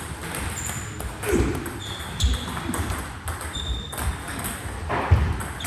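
Table tennis balls ringing sharply off paddles and the table, several pings at irregular intervals, with a few dull thumps.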